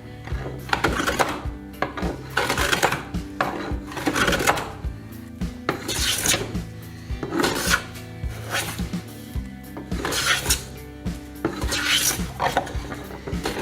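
Repeated strokes of a hand file or rasp, about one a second, over background music.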